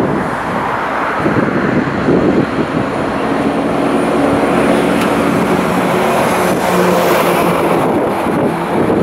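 EU07 electric locomotive hauling a passenger train, approaching with a steady rumble. A set of low humming tones comes in about three seconds in.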